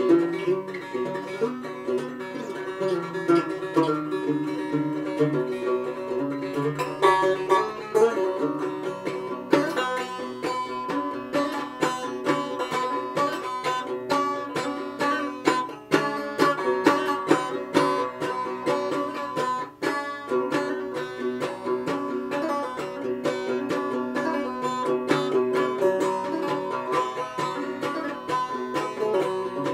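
Five-string banjo played fingerstyle, a quick, continuous stream of bright plucked notes, with a brief drop in loudness about two-thirds of the way through.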